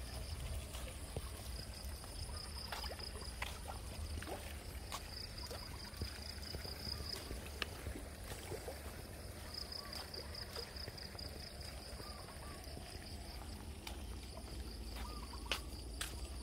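Outdoor ambience: a high-pitched insect trill that comes and goes in stretches of a few seconds, over a steady low rumble, with a few scattered light clicks.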